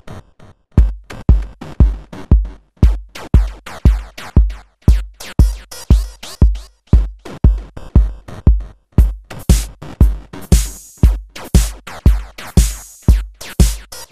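Electronic music: a drum-machine beat with a deep kick about twice a second, coming in about a second in, and bright hissing cymbal hits joining in after about nine seconds.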